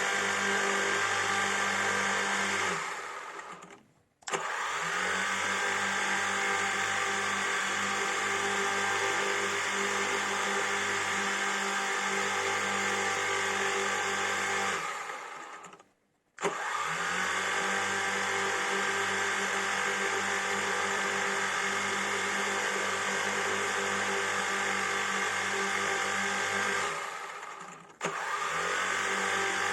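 Quadcopter drone's electric motors and propellers humming steadily, a dense stack of steady tones. The hum fades away three times, a few seconds in, near the middle and near the end, and each time cuts straight back in after a brief gap.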